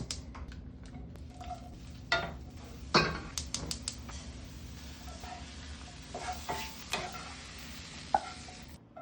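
Food sizzling in a frying pan while a utensil stirs it, with a few sharp knocks of the utensil against the pan. The sizzle comes up about two seconds in and cuts off just before the end.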